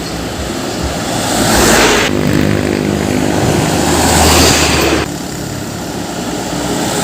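Heavy trucks driving past close by, engine noise mixed with tyre and wind noise, swelling and fading. The sound changes abruptly about two seconds in and again about five seconds in. In the middle stretch a steady low engine drone is plain.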